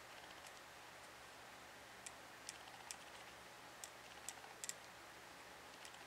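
Faint, irregular clicks from the windage turret of a Burris Droptine riflescope as it is turned by hand, each detent a half-MOA adjustment. The clicks are not super loud, with a few coming in close pairs.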